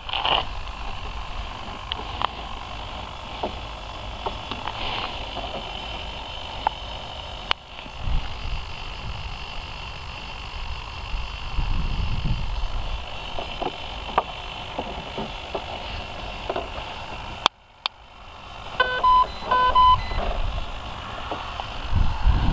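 Low, unsteady rumble of wind and handling on the camera microphone, with scattered light clicks and knocks. About nineteen seconds in come a few short electronic beeps from the RC helicopter's electronics. The rotor is not running.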